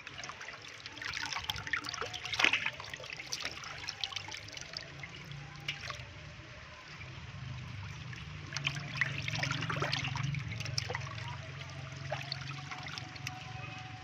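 Water trickling and splashing irregularly over a steady low hum.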